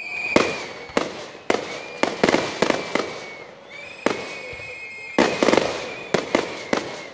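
Fireworks display: aerial shells bursting with sharp bangs in quick, irregular succession, several clustered close together. A steady high whistle sounds on and off between the bangs.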